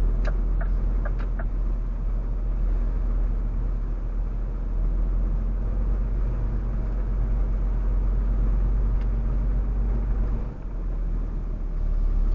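Truck engine running at low speed, heard from inside the cab: a steady low rumble that dips briefly near the end, with a few light clicks in the first second or so.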